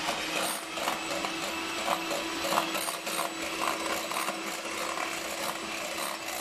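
Electric hand mixer running with a steady motor hum as its wire beaters whip cream in a glass bowl. The beaters clatter and click irregularly against the bowl.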